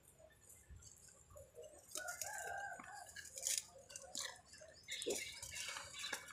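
Faint clucking of a chicken, in short calls, with a few light clicks.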